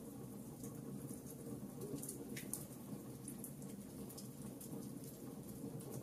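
Logs burning in a fireplace: a steady low rush of flame with scattered sharp crackles and pops, one a little fuller about two and a half seconds in.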